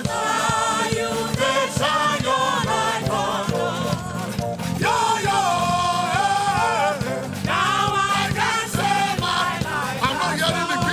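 Gospel praise music: voices singing together over a steady band accompaniment.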